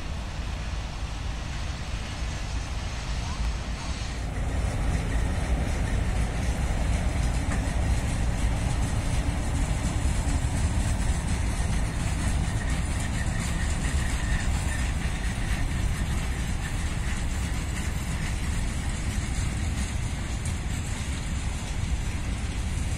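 Freight train hauled by a VL10U electric locomotive rolling past close by: a steady rumble of wagon wheels on the rails that grows louder about four seconds in and stays up as the wagons pass.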